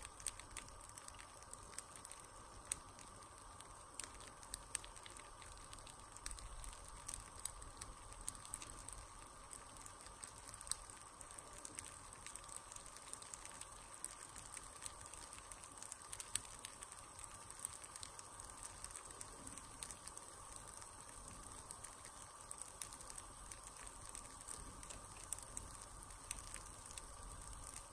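Baghrir batter (Moroccan semolina pancake) cooking in a hot nonstick frying pan: a faint steady sizzle with many small irregular pops as bubbles burst through the batter and leave its holes.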